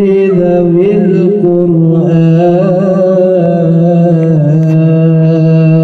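A man's voice chanting shalawat in the Qur'anic recitation style into a microphone and out through a PA loudspeaker: one long melismatic held note, with wavering ornaments in the first second or so, then held steadier.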